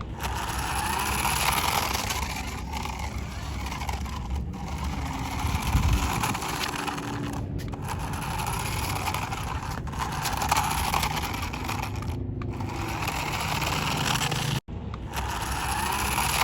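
Toy remote-control car running: its small electric motor and wheels make a steady whirring, rolling noise. A few brief dropouts break it.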